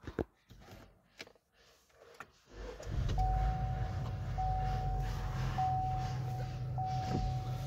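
A few small clicks, then about two and a half seconds in the 2019 Chevy Equinox's 1.5-litre four-cylinder engine starts and settles into a steady idle, heard from inside the cabin. A dashboard chime repeats about once a second over the idle.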